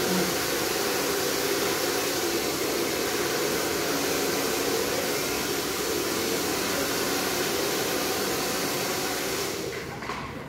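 Handheld hair dryer blowing steadily, an even rush of air with a low hum under it, switched off about a second before the end.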